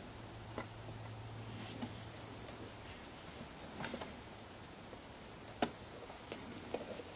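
Steel divider points clicking lightly on a wooden beam as they are stepped along the marks, a handful of separate clicks with the sharpest about four and five and a half seconds in. A faint low hum runs underneath and stops about three seconds in.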